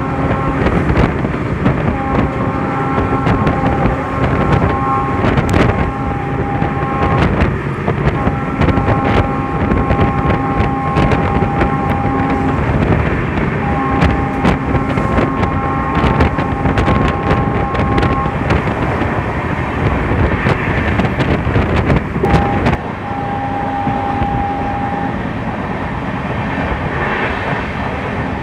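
Running noise of a moving passenger train heard from an open coach doorway: wheels rumbling on the rails, with sharp clacks at rail joints and wind on the microphone. A steady whine of several notes comes and goes several times.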